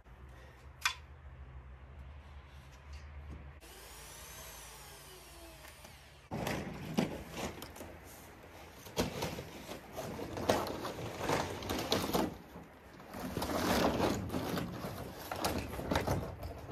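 Stiff dimpled plastic membrane crackling and rustling as it is unrolled and handled, loud and irregular from about six seconds in, after a faint low hum.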